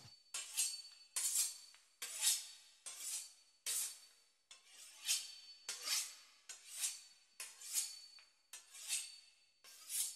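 Knife sawing through the crisp pastry crust of a beef Wellington in regular strokes, about one a second, each a scraping crunch that swells and fades.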